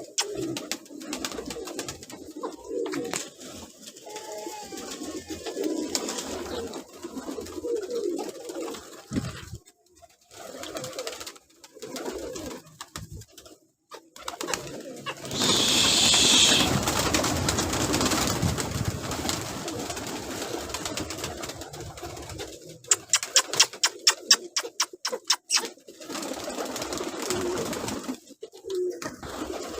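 Domestic pigeons cooing in a loft, low repeated coos. About halfway through comes a few seconds of loud rustling noise, and later a quick run of sharp taps.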